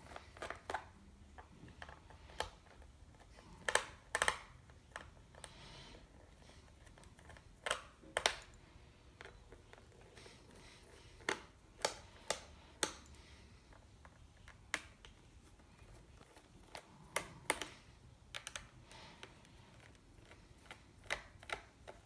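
Scattered sharp clicks and taps at an irregular pace, from hands and a screwdriver working the screws in the plastic bottom cover of a Lenovo Z570 laptop to loosen them.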